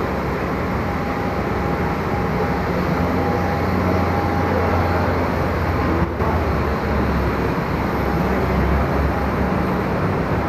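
Steady low rumble of airport apron noise coming through the open-slatted boarding walkway, with a faint steady whine for a few seconds early on and a brief dip about six seconds in.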